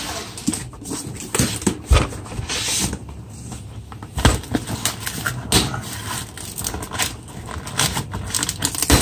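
Cardboard boxes being handled: cardboard rubbing and scraping, with several knocks as a box is pulled out of a carton and set down on a tabletop, the loudest about 2 s and 4 s in.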